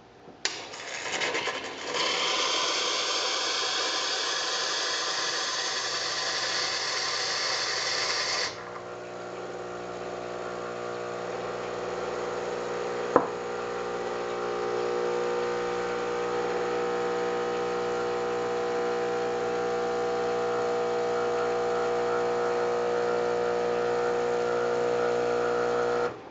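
Hot water from a La Spaziale Vivaldi II Mini espresso machine's hot-water wand hissing into a ceramic cup for about eight seconds, the sound rising in pitch as the cup fills, then cutting off sharply. The machine keeps up a steady hum afterwards, with a single short clink about halfway through.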